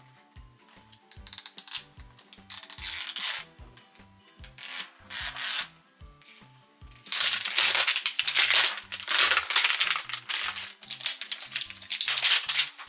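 Toy packaging being opened and handled: rustling and crinkling in short spells, then louder and almost continuous from about seven seconds in, over background music with a steady beat.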